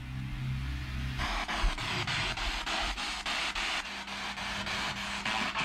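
Spirit box radio rapidly scanning through stations, starting about a second in: a steady rush of static broken by regular clicks, about five a second, as it jumps from channel to channel. A low hum comes before it.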